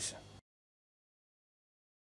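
A man's voice trails off and cuts out abruptly less than half a second in, then dead digital silence.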